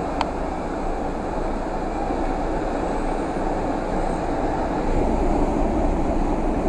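Heavy rain falling on a car, heard from inside the cabin as a steady wash of noise, over the car running slowly along the road. A single sharp tick sounds a fraction of a second in.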